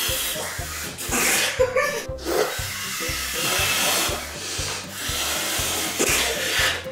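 Several bursts of breathy, hissing blowing into a balloon from a mouth held open by a cheek retractor, over background music with a steady beat.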